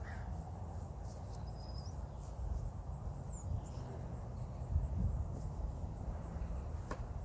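Outdoor ambience: wind rumbling on the microphone, with a few faint, short bird chirps and a single click near the end.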